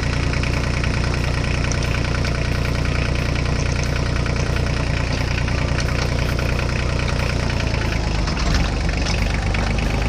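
Tractor engine running steadily at idle, an even rapid chugging.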